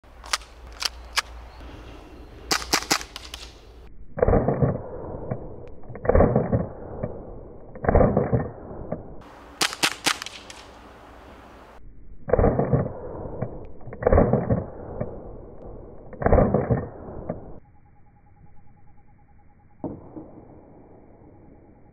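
Tokyo Marui Glock 19 gas blowback airsoft pistol firing single shots, the slide clacking back with each one. There are sharp clacks early and a quick group near the middle, and between them six duller, longer reports about two seconds apart.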